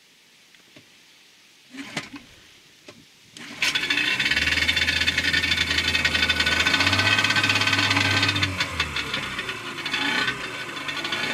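A couple of clicks, then about three and a half seconds in a Parsun 40 hp two-stroke outboard starts and runs loudly with a rattle, on its first start after a long lay-up. Its pitch steps up for a moment, then it settles a little lower and quieter near the end.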